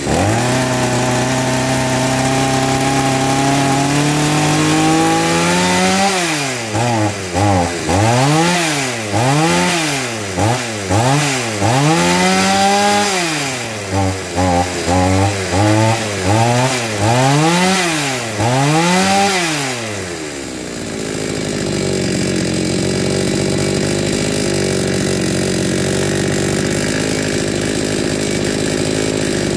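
Chinese-made two-stroke chainsaw running: it idles with the pitch slowly climbing, then is blipped up and down in a series of quick revs for about fourteen seconds before dropping back to a steady idle. The saw runs again after repair while its idle and revs are being set.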